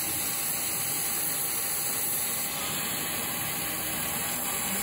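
CNC milling machine running a half-inch solid carbide end mill on a finish pass through a keyway slot in a 1018 steel hub: a steady hiss of machining, easing slightly about halfway through.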